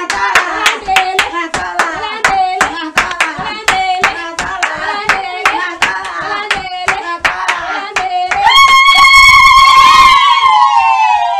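Rhythmic hand clapping, about three claps a second, with voices singing along. From about eight seconds in a loud, long, high-pitched voice holds one cry that slowly falls in pitch, the loudest part.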